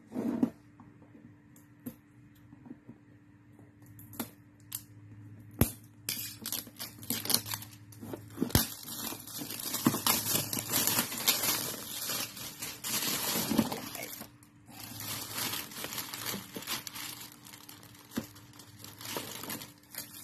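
Plastic packaging and a cardboard box being handled and torn open: a few scattered clicks and taps at first, then dense crinkling and rustling from about six seconds in, with a short pause near fourteen seconds. A faint steady hum runs underneath.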